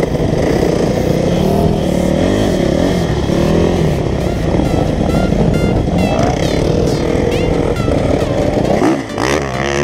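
Dirt bike engine revving up and down under load while riding up a sandy hillclimb slope.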